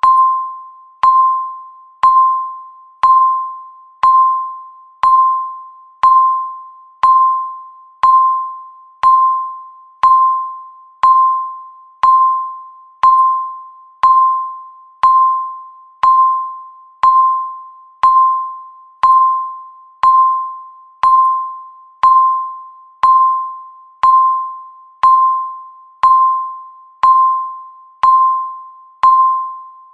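Countdown timer's electronic beep, one bell-like tone struck once a second, each starting sharply and fading away before the next, ticking off each passing second.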